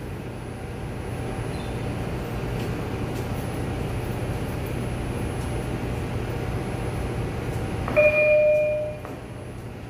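An R142 subway train standing at the platform hums steadily. About eight seconds in its door chime sounds once for about a second, the signal that the doors are about to close.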